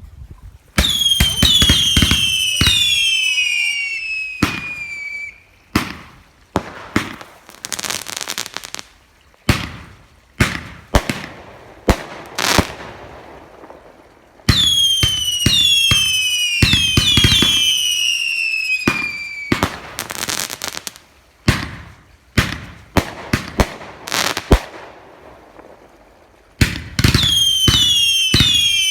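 TNT "Big Show" fireworks cake firing: three runs of several overlapping whistling shots that fall in pitch, with many sharp bangs and crackling between them.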